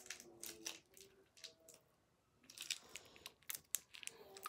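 Faint crinkling of a candy roll's wrapper being torn open and handled, in scattered short crackles with a brief lull in the middle.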